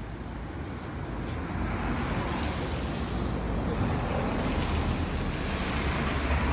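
Steady rushing noise with a strong low rumble, a little louder from about a second and a half in.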